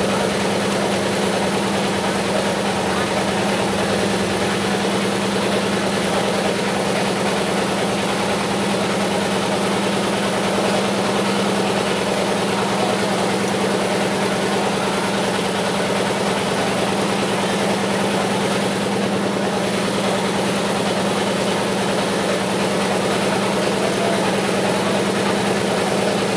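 A steady engine-like hum that runs on without change, with a crowd of people chattering underneath.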